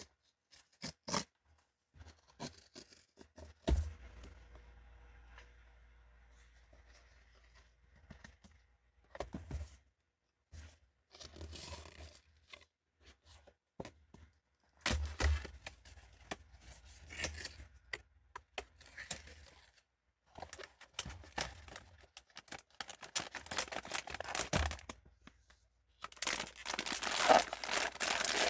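Blind-box toy packaging being torn open and crinkled by hand, with scattered clicks and knocks as the boxes are handled. The loudest, most continuous tearing and rustling comes near the end.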